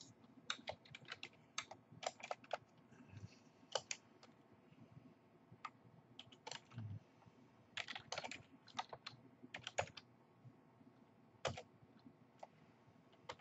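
Typing on a computer keyboard: quiet key clicks in short runs separated by pauses.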